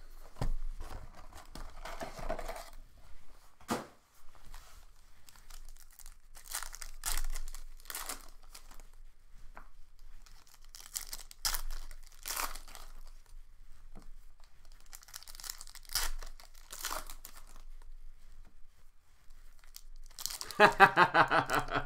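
Plastic wrapping on a box of football trading cards and its packs being torn open and crinkled, in short irregular bursts with pauses between them.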